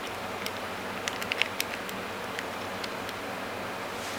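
Short hook pick and tension wrench working in a 5-pin vending machine lock: faint scattered metallic clicks, with a quick cluster about a second in, over a steady hiss.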